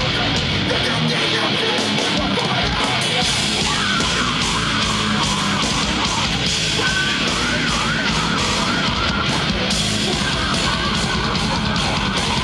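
Live hardcore band playing at full volume: distorted electric guitars and drums in a dense, unbroken wall of sound, with a wavering high note running through the middle.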